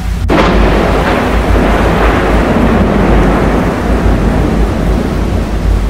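Close thunderclap: a sharp crack about a third of a second in, then a long rumble that slowly dies away.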